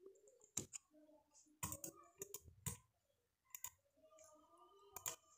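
Computer mouse clicking: a string of sharp, separate clicks at irregular intervals, some in quick pairs, over faint room tone.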